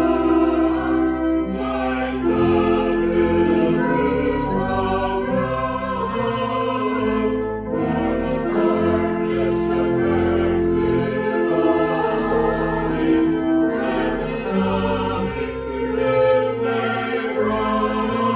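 Choir singing sacred music, with long held notes.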